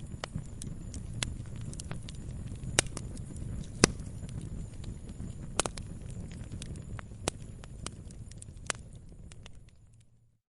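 Wood log fire crackling, with irregular sharp pops over a low steady rumble of the flames; the loudest pops come about three and four seconds in. The sound fades out to silence near the end.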